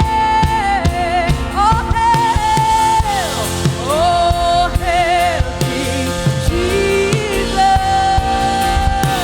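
Live worship music: a singer holds long, sliding notes with vibrato over a band with sustained chords and a drum kit keeping the beat.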